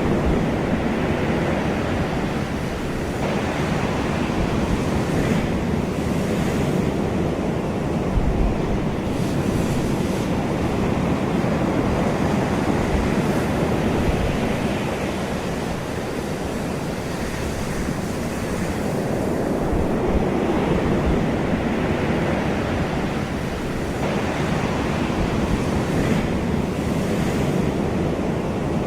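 Ocean surf: waves breaking and washing continuously, swelling and easing every few seconds, with some wind noise on the microphone.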